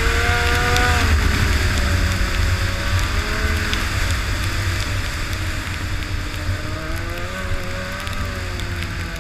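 Arctic Cat Firecat F6 snowmobile's 600 cc two-stroke twin running under way, its pitch dropping about a second in and climbing again near the end as the throttle changes, over a heavy low rumble.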